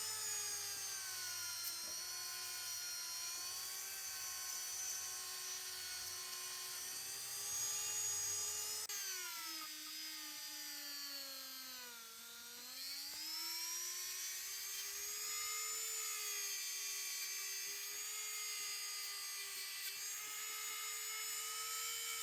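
Small high-speed rotary tool running steadily, polishing a bare zinc die-cast car body. Its whine drops in pitch around the middle as it bogs under pressure against the metal, then picks back up to speed.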